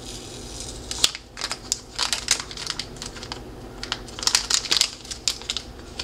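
Metallized anti-static bag holding a new 1.8-inch SSD, crinkling in irregular crackles as it is handled and unwrapped.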